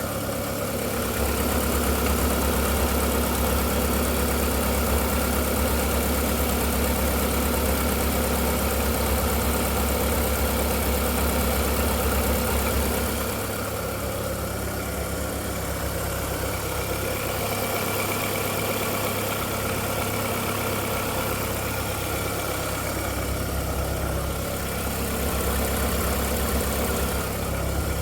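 Volkswagen Golf IV 1.6-litre 16-valve four-cylinder petrol engine idling steadily, recorded for a clack-clack that its owner places on the timing side. A deep hum under it grows louder about a second in and drops back about halfway through.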